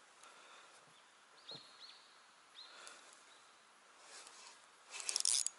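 Faint bird calls: a few short high chirps about a second and a half in and again near three seconds, over quiet outdoor background. A short burst of noise near the end is the loudest sound.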